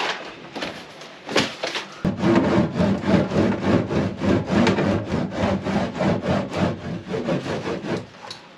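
Crinkling and tapping as foil-backed sound-deadening sheets are handled and pressed onto the bare metal walls. About two seconds in, background music with a steady beat starts suddenly and carries on under the rubbing of the mats.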